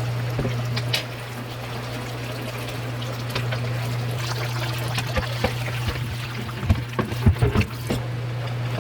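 Steady liquid sound from cooking, like liquid pouring or trickling in a pot, over a steady low hum. About seven seconds in there is a short run of knocks and low thumps.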